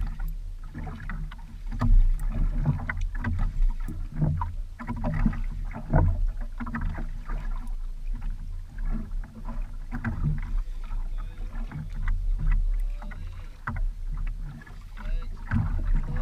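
Water slapping and splashing against the hull and outrigger of a small wooden outrigger boat, with a constant low rumble and irregular knocks.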